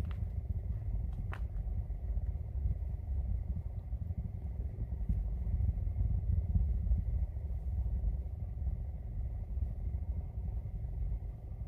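Deep, low rumble of a distant SpaceX rocket launch, swelling to its loudest in the middle and easing off toward the end.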